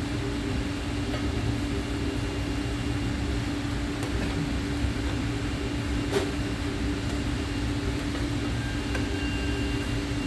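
CNC machine running steadily, a constant hum with a low rumble. One short click about six seconds in.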